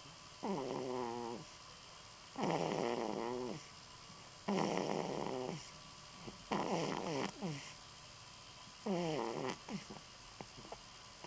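Sleeping baby snoring: five pitched snores about two seconds apart, each lasting about a second, then a few short snuffles near the end.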